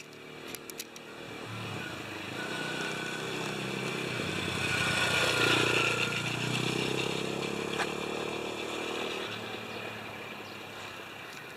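Thunder motorcycle, a small trail bike built as a replica of the Yamaha Tricker, riding past. Its engine grows louder as it approaches, is loudest about halfway through, then drops slightly in pitch and fades as it rides away.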